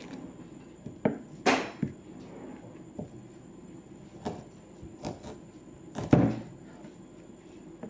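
A kitchen knife knocking on a cutting board as onion is cut by hand: about eight sharp, irregular knocks, the loudest about six seconds in.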